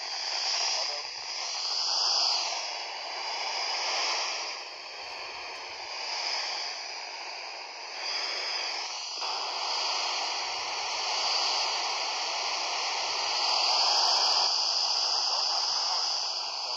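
FM receiver hiss from a Kenwood TH-D72 handheld transceiver tuned to the International Space Station's voice downlink, with no voice yet coming through. The noise swells and eases every couple of seconds.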